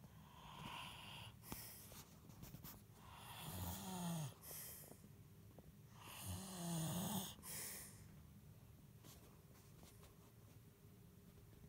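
A man snoring in his sleep: two long snores about three seconds apart, each a buzzing in-breath followed by a short puff out, after a fainter breath near the start.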